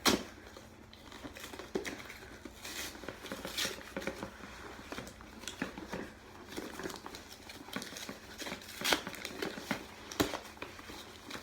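Packaging of a phone's shipping box being handled and opened by hand: irregular crinkling, rustling and small taps and clicks. The sharpest click comes right at the start, and two more come near the end.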